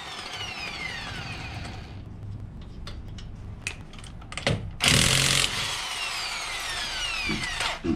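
A power tool spinning out a car wheel's lug bolt. It opens with its motor whine falling away. About five seconds in there is a loud, short burst as the trigger is pulled, and then the whine falls in pitch for about two seconds as the motor winds down.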